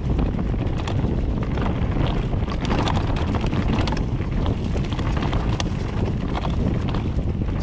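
Wind buffeting the camera microphone while a Cube Stereo 150 C62 mountain bike rolls along a trail, with the rumble of the tyres and frequent short clicks and rattles from the bike over the rough ground.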